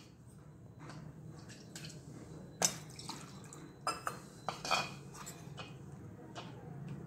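A few sharp clinks and knocks of a mixer-grinder jar being handled, with dripping and sloshing water as the jar is rinsed out.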